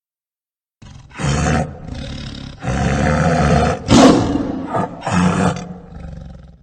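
A large wild animal roaring: a run of loud, rough roars starting about a second in, the loudest about four seconds in, cutting off abruptly at the end.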